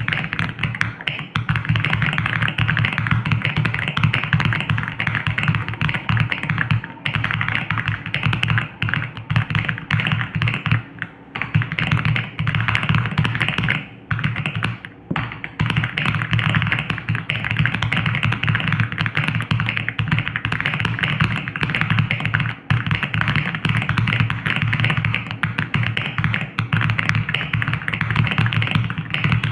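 Fast typing on an Aula F99 mechanical keyboard with Crescent switches: a dense, continuous run of key clacks, broken by brief pauses about 7, 11, 14 to 15 and 22 seconds in.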